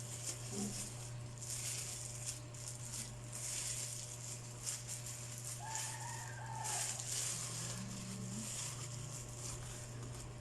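Rustling and handling of packed items, bags and wrappers, as they are put back into a balikbayan box, in uneven bursts over a steady low hum.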